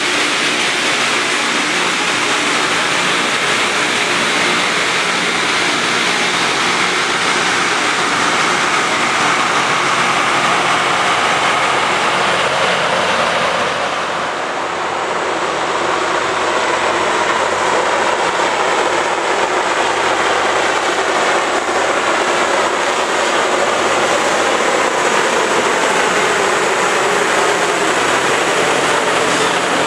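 Loram rail grinding train at work: its grinding stones on the rail make a loud, harsh, continuous hiss over the steady hum of its diesel engines. The sound briefly dips about halfway through, then carries on.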